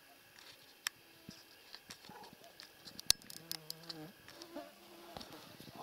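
An insect buzzing close by, with scattered sharp clicks and ticks, the loudest about three seconds in.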